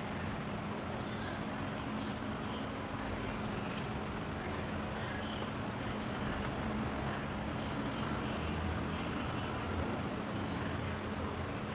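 Steady mechanical hum with a constant low tone over an even background noise.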